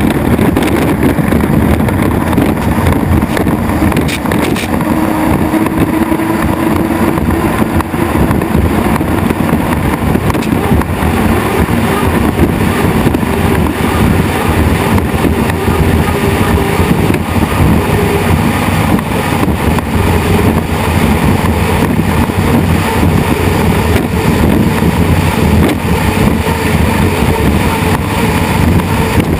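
Turbine-powered unlimited hydroplanes running at racing speed: a loud, steady roar with a faint held tone in it.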